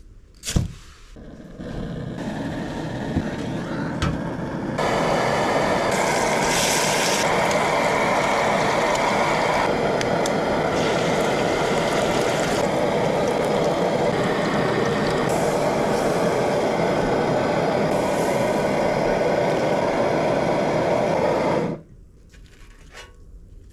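Liquid-fuel camp stove lit with a sharp click, its pressurized burner building up to a loud, steady rushing hiss, with food frying on the griddle over it; the noise cuts off suddenly near the end.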